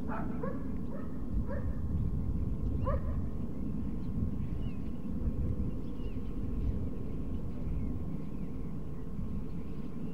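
Distant rumble of an F-35 fighter's jet engine passing overhead, steady throughout. A dog barks several short times in the first three seconds.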